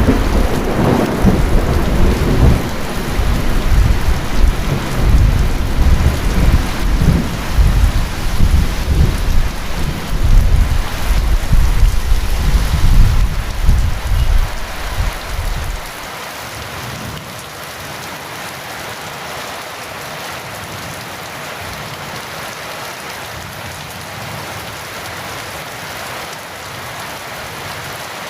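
Heavy rain falling steadily, with thunder rumbling and surging loudly under it for the first half. About halfway through the thunder cuts off suddenly, leaving only the even hiss of rain.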